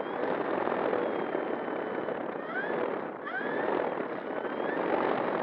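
Electric motor and propeller of an E-flite Air Tractor 1.5 RC plane running as it taxis, heard from a camera on the plane: a steady rush of prop wash and rolling noise with a high motor whine. From about halfway in, the whine's pitch dips and rises again a few times.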